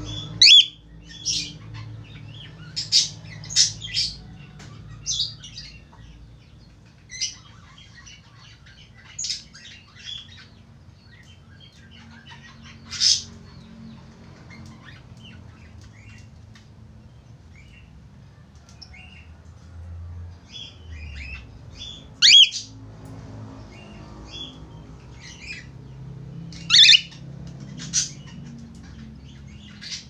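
Cockatiel chirping and calling in short, sharp high notes, spaced irregularly, with a few louder calls among softer ones.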